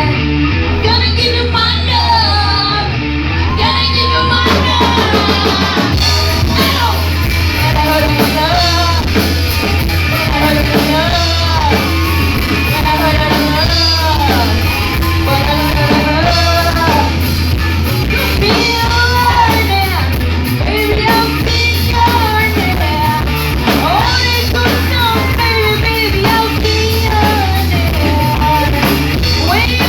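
Live rock band playing a song, with a singer's vocals over drums and heavy bass throughout.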